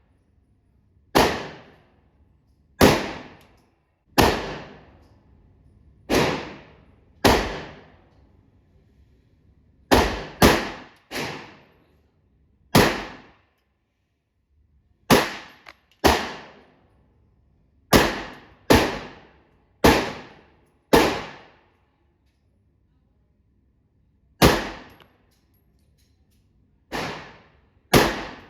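9mm pistol fired repeatedly, about eighteen single shots at an irregular pace, sometimes two close together and sometimes a few seconds apart. Each shot is a sharp crack followed by a short ringing tail.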